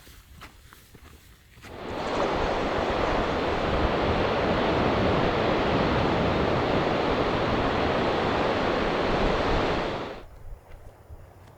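Steady rush of ocean surf breaking on the shore, loud and even, which cuts in about two seconds in and cuts out abruptly near the end. Faint footsteps on the trail come before it.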